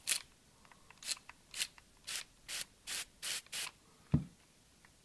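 A hand sprayer with a brass nozzle misting water onto potting soil in about eight short hissing sprays. A low thump follows near the end.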